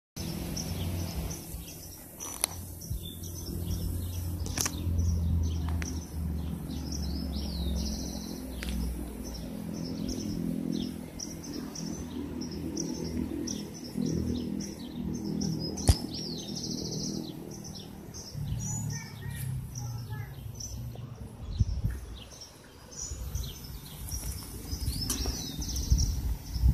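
Small birds chirping, with many short high calls repeated throughout, over a low rumble on the microphone and a few sharp clicks.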